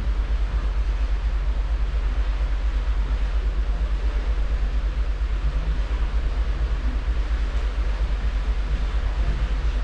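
Cruise ship's stern running under way: a steady low rumble that pulses evenly several times a second, with an even hiss over it.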